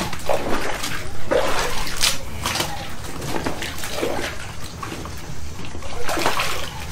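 Water splashing and sloshing in a plastic tub as hands grope in it for live bass, in irregular splashes.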